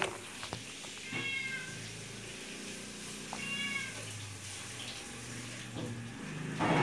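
A cat meowing twice, about two seconds apart, each meow a short call that falls slightly in pitch, over a low steady hum.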